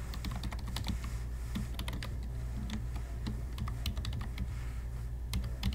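Typing on a computer keyboard: an irregular run of quick key clicks as an email address is entered, with a few short pauses. A steady low hum runs underneath.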